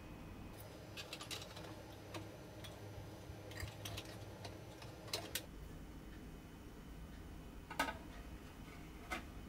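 Small metal parts of a miniature stainless steel stove clicking and tapping as they are set in place, a dozen or so scattered light clicks, the loudest one near the end as a small copper tray is slid into the stove's front opening.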